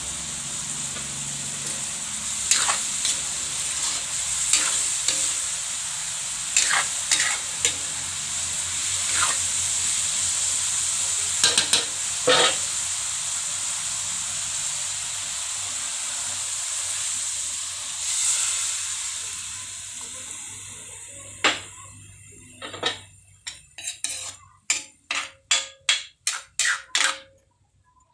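Stir-fried noodles sizzling in a hot pan while a utensil stirs them, with occasional knocks and scrapes against the pan. The sizzle fades out near the end, followed by a quick run of sharp taps, about three a second.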